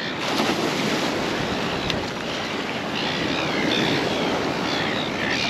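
Ocean surf washing around a wading angler, a steady rush of water, with wind buffeting the microphone.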